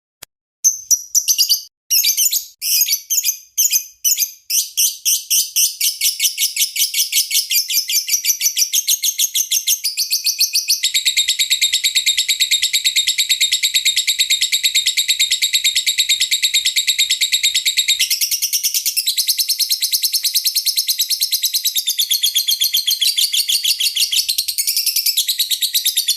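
Lovebird singing a long chattering song: separate high chirps that quicken within a few seconds into a dense, continuous rapid trill lasting about twenty seconds, then stopping abruptly.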